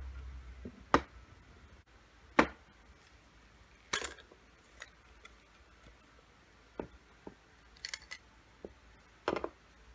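Sharp clicks and taps from an unboxed lightstick and its packaging being handled, coming singly a second or more apart, the loudest about two and a half seconds in.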